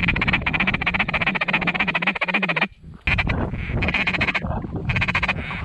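Hunters' mallard duck calls: a fast, even feeder-call chatter for nearly three seconds, a short break, then a few separate drawn-out quacks, calling incoming ducks in to land.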